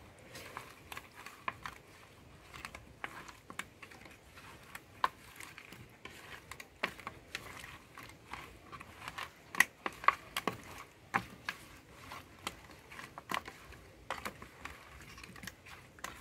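A hand rubbing salt into raw, wet bata fish on a banana leaf: irregular small wet clicks and slaps as the fish are turned over, with a louder cluster about two-thirds of the way through.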